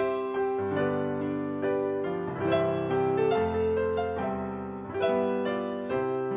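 Soft piano music playing slow chords and a gentle melody, notes struck and left to ring.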